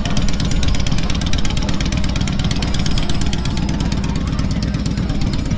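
Motorcycle engine running at idle, a steady, evenly pulsing rumble.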